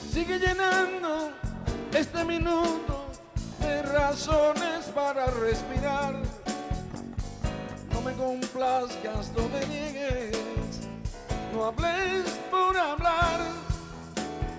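Male vocalist singing into a microphone with wide vibrato, over a live band with drum kit.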